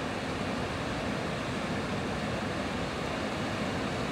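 A steady, even rushing noise with no distinct tones or knocks.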